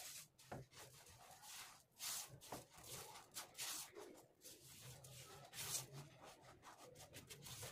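Faint, irregular scraping and rustling of a silicone spatula pushed through granulated sugar in a non-stick pan, the crystals just beginning to melt with no water added.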